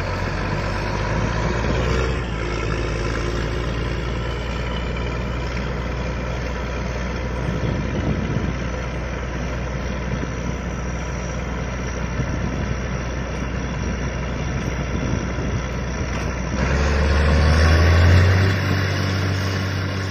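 Truck-mounted borewell drilling rig running steadily with a heavy engine drone; about seventeen seconds in it gets louder and rises in pitch as the engine revs up.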